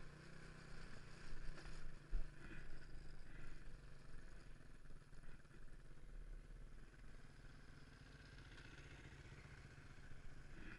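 Motorcycle engine running steadily in a low, noisy recording, with a few louder knocks about one and a half to two and a half seconds in.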